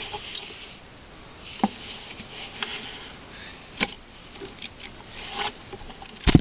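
Hand tools working a tight 10 mm nut on the purge valve solenoid mount: scattered sharp metal clicks and short scrapes, then one loud sharp knock near the end.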